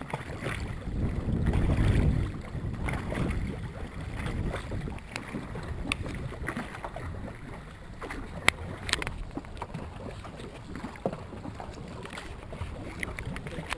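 Dragon boat paddles dipping and splashing in the water, with wind buffeting the microphone, heaviest in the first two seconds. A few sharp knocks come in the middle.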